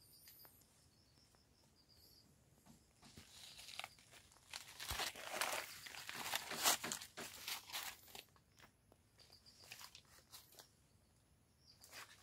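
Footsteps crunching and rustling through dry fallen cacao leaves, an irregular crackle that is loudest in the middle few seconds and fades to scattered steps.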